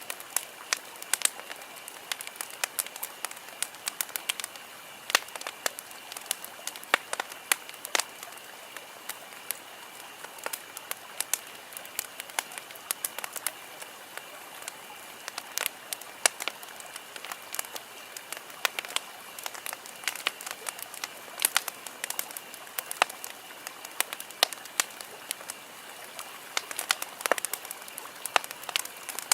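Campfire burning with irregular sharp crackles and pops from the wood over a steady hiss, with a faint steady high tone underneath.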